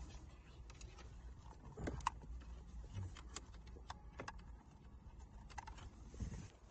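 Faint, scattered clicks and taps of plastic trim and wiring being handled as a car's head unit is fitted back into the dashboard, over a low steady hum.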